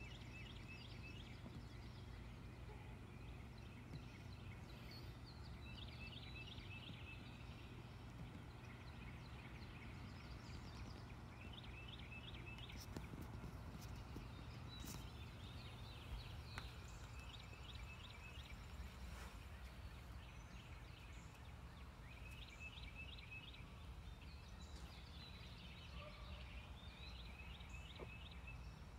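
Faint bird calls: short, quick trills of several notes, repeated every few seconds, over a low steady hum.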